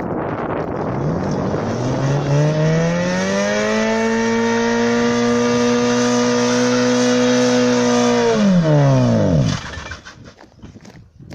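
Tofaş Doğan SLX engine revving up over about two seconds and held at high revs for several seconds. The revs then drop sharply and the engine sound dies away near the end.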